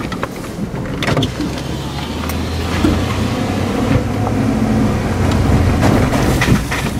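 Pickup truck driving on a gravel road, heard from inside the cab: a steady low rumble of engine and tyres with scattered sharp knocks and rattles.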